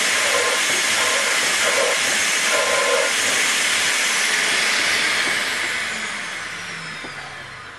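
Vacuum cleaner running with a loud, steady rush of air, blowing through a hose into a model beam engine's cylinder to push the piston up. About five seconds in it is switched off and the motor winds down with a falling whine, the rush fading away.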